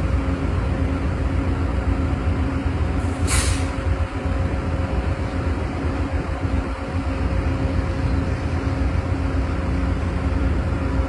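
VIA Rail passenger train standing at the platform, its diesel locomotive idling with a steady low rumble and hum. About three seconds in comes a short hiss of released air from the train's air brakes.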